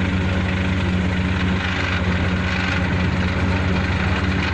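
A Kubota farm machine's diesel engine running steadily at an even speed.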